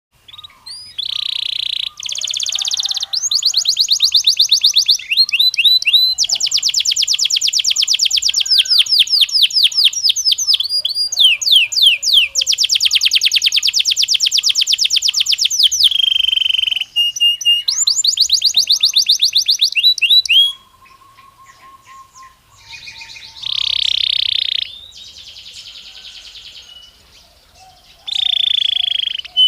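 Belgian canary singing a long song of fast, high-pitched trills and rapid runs of repeated notes. The song goes quiet about twenty seconds in, leaving only a few soft notes, then comes back loud near the end.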